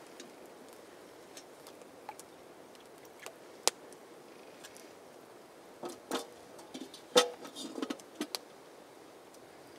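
Metal camp kettle and mug clinking as they are handled while tea is made: one sharp clink a little over a third of the way in, then a cluster of clinks and knocks in the second half, over a faint steady hiss.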